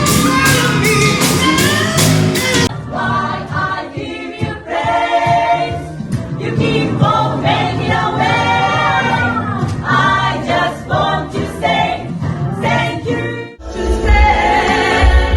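Pop music with singing. A full band with a steady drum beat cuts abruptly about three seconds in to a softer passage of layered, choir-like vocals, and near the end it switches just as suddenly to a loud full-band section with heavy bass.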